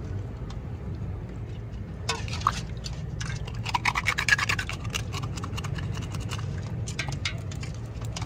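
Scraping and clicking of food being handled at a kitchen counter, in quick irregular strokes that are densest about four seconds in, over a steady low hum.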